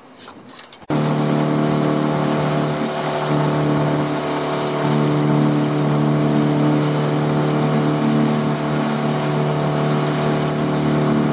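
A small boat's engine running at steady cruising speed, a constant hum over the rush of water along the hull, starting abruptly about a second in.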